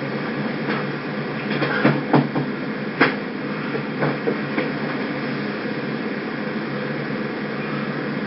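Steady hum and hiss, with a handful of sharp knocks and clicks between about one and a half and five seconds in.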